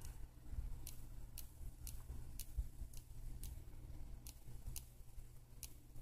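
Mandibles of a female Chinese mantis (Tenodera angustipennis) clicking as it chews protein insect jelly, about two sharp little clicks a second. Under them runs a low rumble of handling noise from the hand-held phone.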